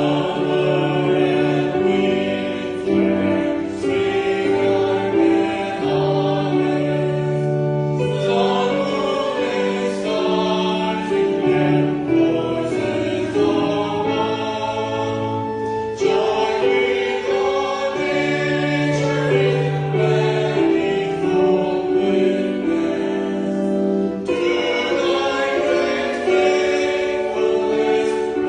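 A group of voices singing a hymn together with accompaniment, in long held phrases.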